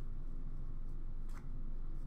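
A steady low room hum, with one faint click about one and a half seconds in as trading cards are handled.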